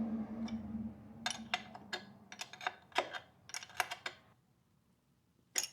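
Irregular sharp clicks, about a dozen over three seconds, from hand tools being worked at a motorcycle's rear axle and chain adjusters while the chain slack is set. A steady low hum runs under the first couple of seconds.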